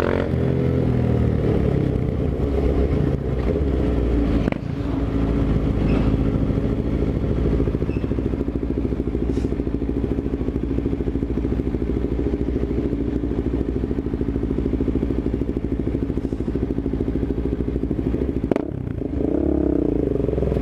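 Suzuki GSX-R750's inline-four engine running steadily at low revs while riding slowly in traffic. The note dips briefly about four seconds in and again near the end, where it picks up.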